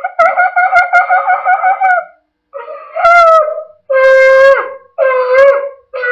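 Shofar being blown: a long wavering note for about two seconds, then, after a short gap, four shorter blasts about a second apart, each ending in an upward break in pitch.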